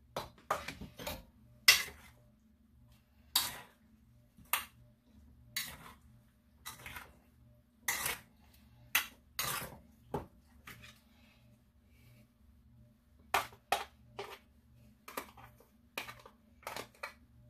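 Metal spoon clinking and scraping against a plastic tub and a ceramic bowl as chopped vegetables are scooped into the bowl and mixed, in irregular sharp clicks with a short lull about two-thirds of the way through.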